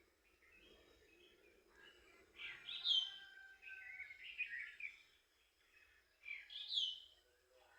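Songbirds chirping and calling, with two louder bursts of song about two and a half seconds in and again near six and a half seconds, each with a sharp falling call.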